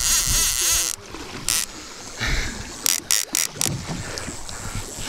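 Wind buffeting the microphone and water noise on an open fishing boat, while a conventional fishing reel is cranked. The hiss drops sharply about a second in, and a few short gusts follow.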